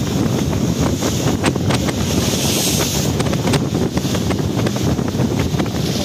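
Strong wind buffeting the microphone on the deck of a passenger ship at sea, with irregular gusty thumps over the ship's steady low rumble.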